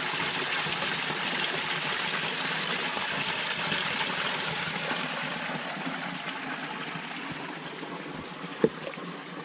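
A small woodland stream's little waterfall splashing and trickling steadily, easing slightly toward the end. A single short knock sounds near the end.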